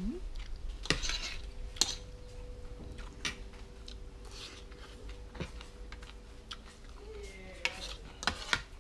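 Metal spoon and fork clinking and scraping against a plate while eating rice, in scattered clicks with a cluster near the end, over a faint steady hum.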